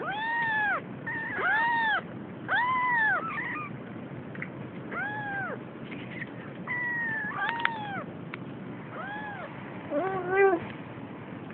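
Young Siamese kitten, almost three weeks old, mewing repeatedly: about seven short, high cries that rise and fall in pitch, with a lower, louder call about ten seconds in.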